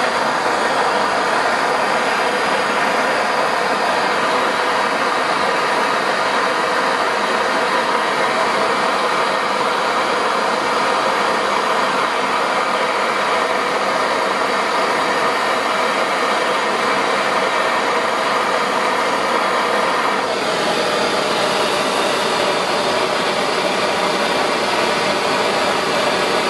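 Handheld gas torch burning with a steady rushing hiss of flame, heating a tool-steel blade to cherry red for hardening before the quench. The sound changes slightly about twenty seconds in.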